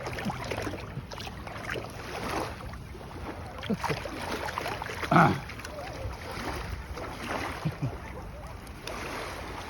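Steady wind and surf noise with wind buffeting the microphone. A brief, louder pitched sound about five seconds in stands out, with a few fainter short ones around it.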